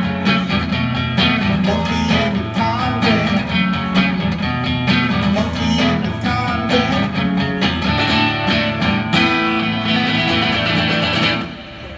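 Silvertone electric guitar strummed in the song's closing instrumental bars; the playing stops near the end.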